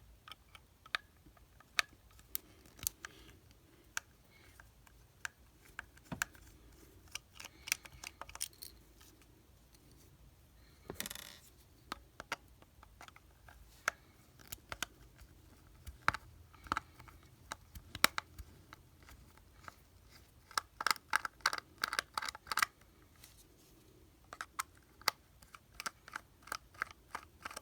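T9 Torx screwdriver working the screws out of a plastic walkie-talkie case: scattered small clicks and ticks of the bit and the handled radio, with a quick run of clicks about 21 seconds in and a short scrape about 11 seconds in.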